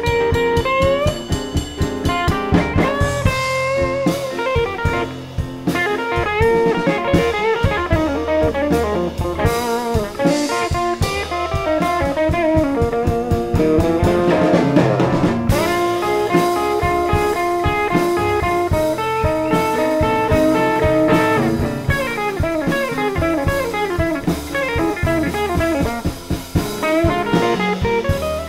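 Slow blues played live by a trio: a Gibson ES-335 electric guitar plays lead lines with bent notes and vibrato, over a Roland RD-88 stage piano and a drum kit keeping a steady beat.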